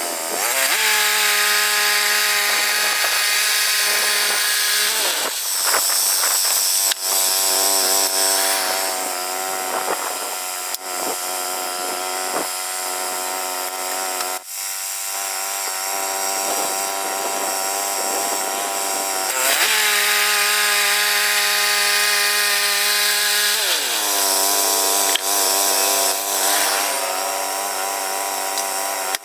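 Woodland Mills HM122 bandsaw mill running at high revs, its blade cutting through a cedar log. The engine note rises just after the start and dips and shifts a few times as the cut loads it.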